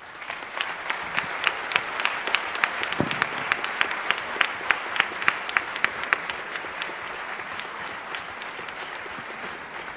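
Audience applauding at the close of a talk. A few loud, close claps at about three a second stand out over the crowd for the first six seconds, then the applause thins out.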